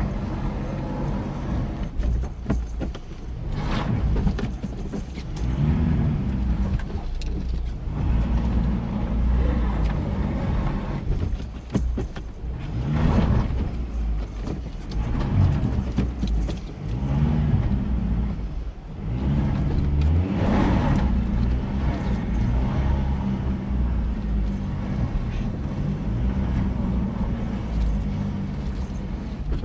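Ford Ranger 4x4 pickup's engine revved in repeated surges as the throttle is pumped, heard from inside the cab; the wheels are spinning without grip in mud, so the truck is stuck.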